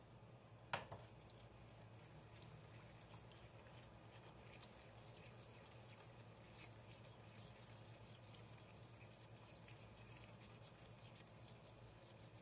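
Faint whisking of a thin oil and sugar mixture in a bowl with a wire whisk: light liquid sloshing with soft ticks of the wires against the bowl. A single sharp knock comes about a second in, over a low steady hum.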